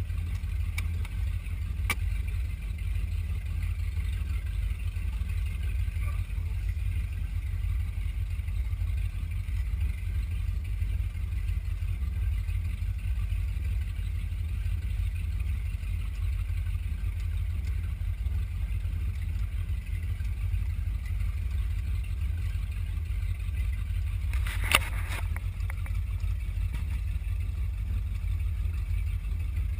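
A 27-foot powerboat running steadily, a deep low rumble from its engines and hull with a faint hiss over it. A single sharp knock about 25 seconds in.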